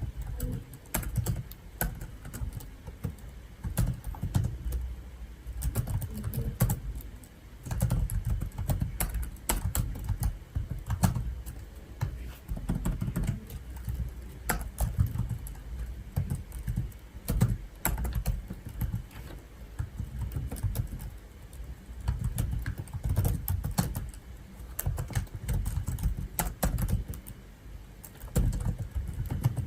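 Typing on a computer keyboard: fast, irregular runs of key clicks with short pauses between bursts.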